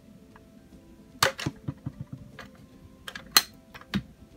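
Small hard-plastic toy figures and playset pieces clicking and tapping as they are handled, a few separate sharp clicks, the loudest about three and a half seconds in.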